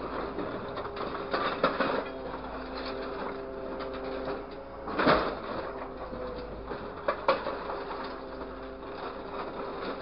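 Grapple truck's hydraulics running with a steady hum while the boom and grapple are worked from the levers, with several clunks and knocks, the loudest about five seconds in and a quick pair near seven seconds.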